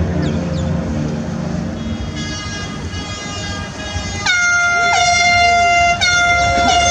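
Horns sounding as a cruise ship departs: a deep, steady horn fades out over the first two seconds, then a higher-pitched air horn gives a long blast from about four seconds in, a short blast, and a third blast starting near the end, each dipping slightly in pitch as it starts.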